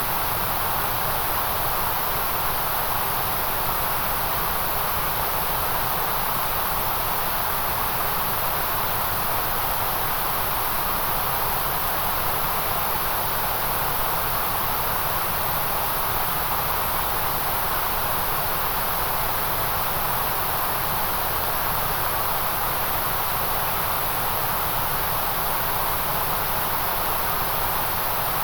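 Steady, unchanging white-noise hiss at a constant level, with no breaks or events.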